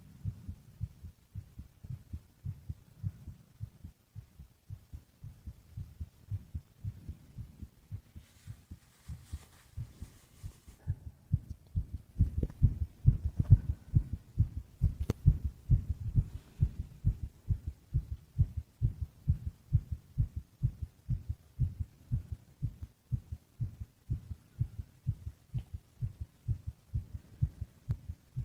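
Human heartbeat heard close against the chest: a steady run of soft, low thuds that grows louder about twelve seconds in.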